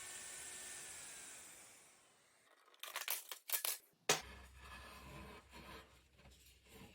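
Festool OF 1400 router's motor whine and air hiss fading out over the first two seconds as it spins down, followed by a few sharp clicks and knocks of handling.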